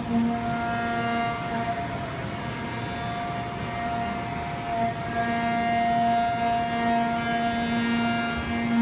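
Haas 5-axis CNC mill cutting an aluminum part at high speed, the spindle and end mill giving a steady whine of several pitches that shifts and brightens about halfway through.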